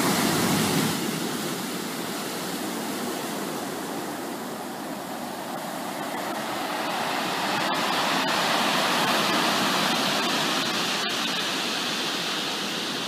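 Ocean surf breaking on a rocky, pebbly shore: a steady rush of water that swells louder in the second half.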